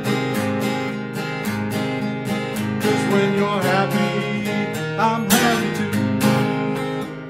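Acoustic guitar strumming a steady rhythm in the instrumental ending of a song, after the last sung line.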